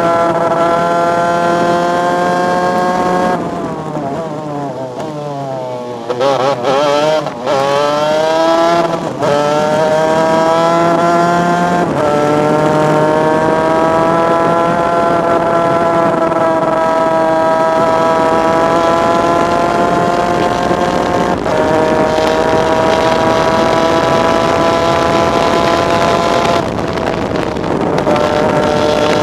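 A superkart's 250 cc two-stroke engine heard onboard at race speed, its pitch climbing slowly in long pulls and dropping suddenly at each upshift. A few seconds in, the engine note falls away as the kart slows for a corner, then climbs again through several quick shifts.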